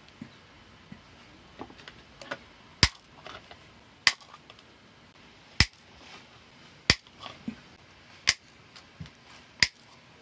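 A series of sharp clicks from a small hard plastic part being worked in the hands: six loud ones about every second and a half, with fainter small clicks between.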